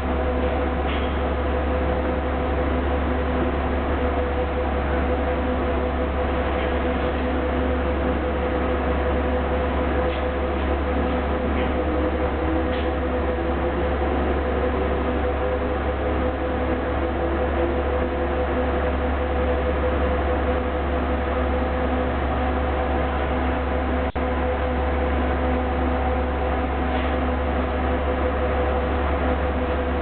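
Steady mechanical hum of a Sunlong BRT bus standing at the platform with its doors open, its engine and air-conditioning running. A faint tone slides slowly upward partway through.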